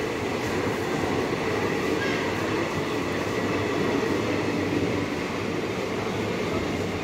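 Train running, a steady rumble with no pauses.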